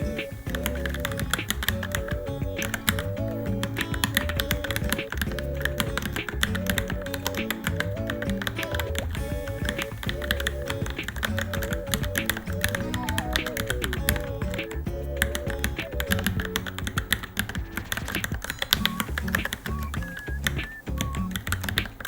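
Fast, continuous typing on a Varmilo Minilo mechanical keyboard, many key clicks a second, over background music with a repeating melody.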